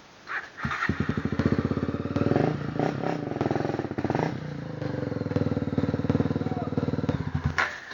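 Off-road motorcycle engine held at hard throttle as the bike climbs a hill in third gear. The engine starts to be heard about a second in, runs near one steady pitch with small dips, and stops shortly before the end.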